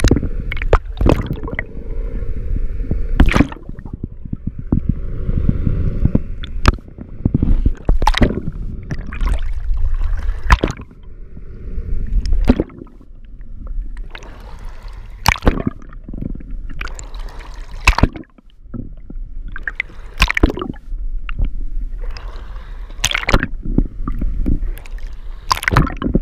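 Water gurgling and sloshing around an underwater camera being moved through the sea, over a low rumble, with irregular sharp clicks and knocks every second or two.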